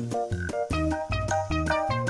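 Instrumental background music with short repeated piano-like notes.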